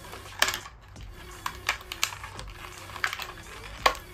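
Clear plastic blister packaging of a diecast toy car crackling and clicking in irregular sharp snaps as it is handled and pried open by hand, the loudest snap near the end.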